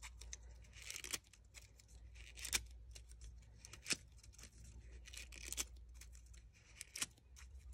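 Fringed paper strips pulled over a bone folder to curl them: faint papery scraping and rustling with scattered light clicks.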